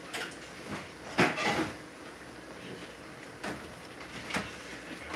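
Kitchen clatter from out of sight: a few separate knocks and thuds, the loudest a short cluster about a second in, with smaller ones later.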